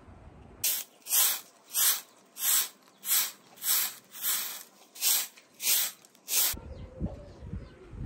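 A hand-held straw broom sweeping a dusty concrete surface: about ten brisk swishes of the bristles, a little under two a second, starting about half a second in and stopping about a second before the end.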